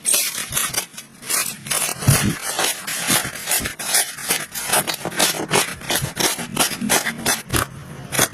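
Slime being squeezed and poked by hand, giving a quick irregular run of sticky pops and crackles, about three a second.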